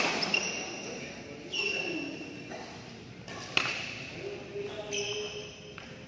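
Badminton racket striking the shuttlecock, two sharp pings right at the start and about three and a half seconds in, with short squeaks in between.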